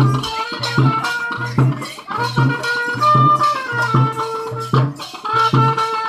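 Kavadi dance music: a wind instrument plays a held, wavering melody over a steady drum beat.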